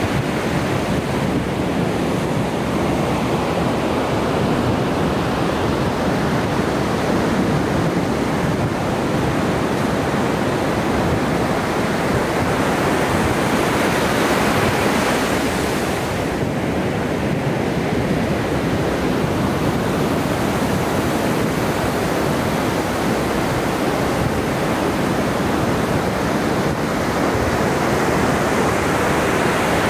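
Ocean surf: waves breaking and washing on the shore in a steady rush. A louder surge of wash builds about halfway through, then eases.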